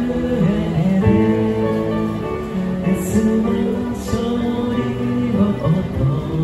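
A man singing a Christian worship song into a microphone, amplified through a small street speaker, with electronic keyboard accompaniment.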